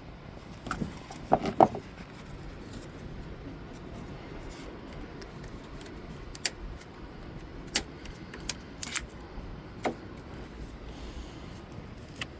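Handling noise: a few knocks about a second and a half in, then scattered single sharp clicks, like small hard parts being picked up and set down.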